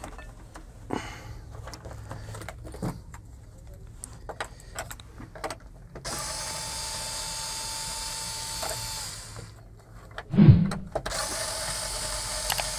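Electric screwdriver running twice, about three seconds each, backing screws out of a TV's back cover, with a thump between the runs and light clicks of handling before the first.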